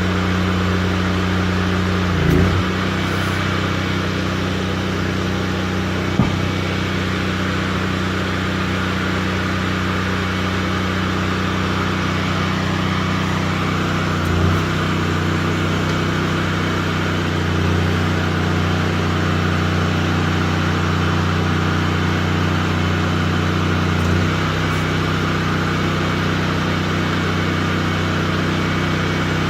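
An engine on foundation pier-driving equipment running steadily under load. Its note shifts briefly about two seconds in, again around fourteen seconds, when its deepest part drops away, and around twenty-four seconds, when it comes back, with a single sharp knock around six seconds.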